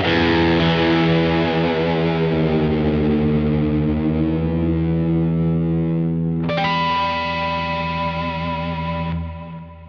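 Overdriven electric guitar, a 1996 Fender American Stratocaster with high-output noiseless pickups through a tube combo and a Universal Audio OX Box factory delay preset. A held chord rings and wavers. A second chord is struck about six and a half seconds in, rings, and fades away near the end.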